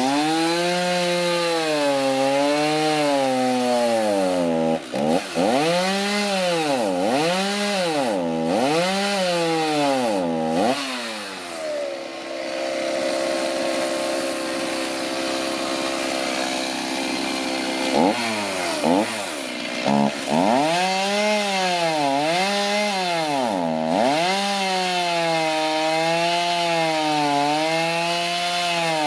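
Chainsaw cutting into an old ash log, its engine pitch swinging up and down about once a second as the throttle is worked through the cut. For several seconds in the middle the pitch holds steadier before the rising and falling starts again.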